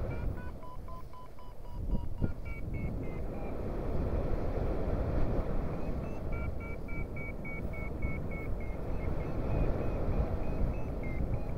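Paragliding variometer beeping over wind rushing past the microphone. The beeps are lower for the first couple of seconds, then higher and steady at about three to four a second from about six seconds in, the vario's signal of climbing in a thermal.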